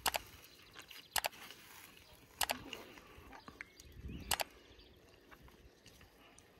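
Strawberry plants crackling and rustling as they are handled while berries are picked: four short, sharp crackles a second or two apart.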